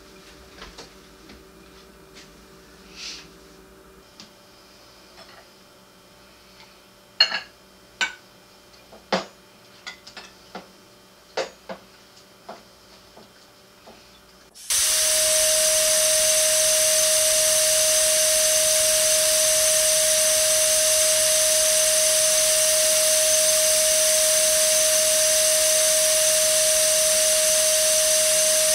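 Scattered light clicks and knocks, like kitchen things being handled. About halfway through, a sudden loud, steady hiss with one steady tone in it cuts in and holds.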